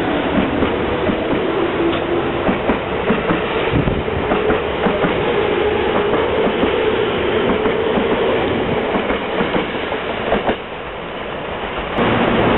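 Yellow Seibu electric train pulling out along the platform: its motors whine, rising in pitch as it gathers speed, while its wheels clack steadily over the rail joints. The noise falls away near the end as the last cars go by.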